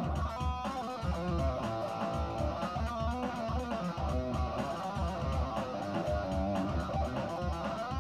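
Electric guitar played through an amplifier: a run of quick picked notes over a low, regular beat.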